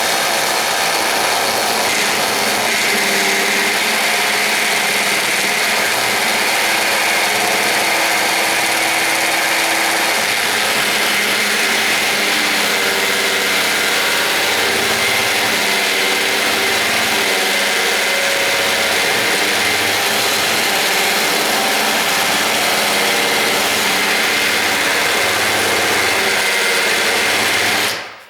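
Electric drill running steadily with its bit reaming out the strike plate opening in a door jamb. It runs without a break and cuts off sharply near the end.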